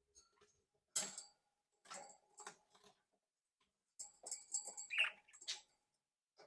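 Budgerigars chattering in short chirps and clicks, in separate bursts with quiet gaps; the busiest stretch comes in the second half, with the clearest chirp about five seconds in.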